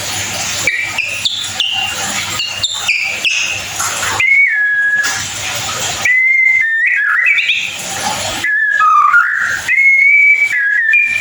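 White-rumped shama singing: a quick run of short chirps stepping up in pitch, then clear whistled notes, some held level and some sliding down or up, broken by stretches of hiss.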